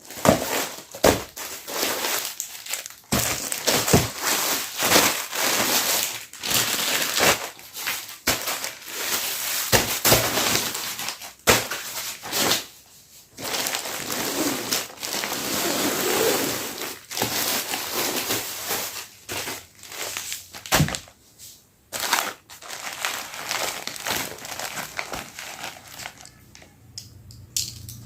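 Parcel packaging being handled and opened by hand: plastic crinkling and crackling in irregular spells, with sharp clicks and crunches and a few short pauses.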